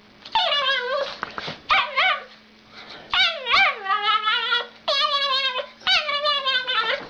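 A dog whining in about six drawn-out, wavering high calls that rise and fall in pitch, one after another.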